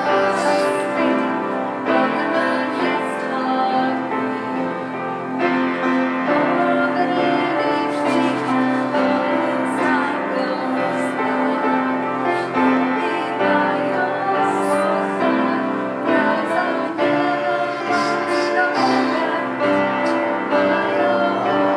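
Worship song: singing over piano accompaniment.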